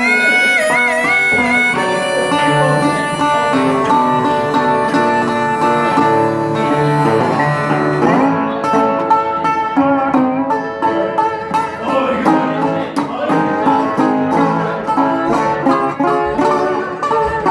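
Instrumental break in a blues song: a guitar picks a run of plucked notes between verses, with no singing.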